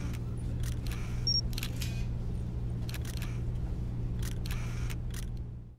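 Camera-equipment sound effects: a steady low hum under a series of clicks, with a short high electronic beep about a second in. The sound fades out at the very end.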